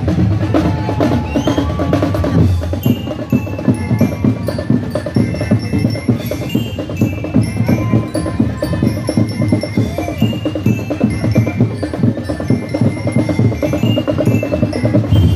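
Festival drum-and-lyre band playing: a fast, steady drum beat with bell-lyre notes ringing out over it.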